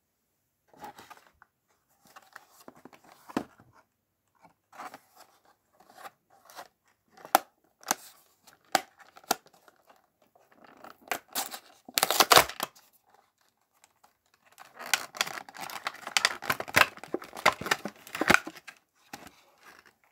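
Toy packaging being opened by hand: scattered crinkles and clicks of plastic and foil, a loud rip as a foil bag is torn a little past halfway, then a long stretch of dense plastic-bag crinkling.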